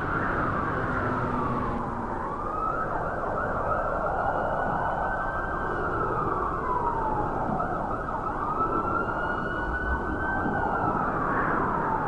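Emergency vehicle siren wailing, its pitch slowly rising and falling over several seconds at a time, over a steady hum of city traffic.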